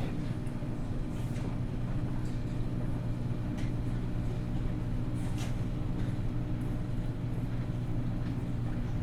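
Laundromat room tone: the steady low hum of running washers and dryers, with a few faint clicks and clinks over it.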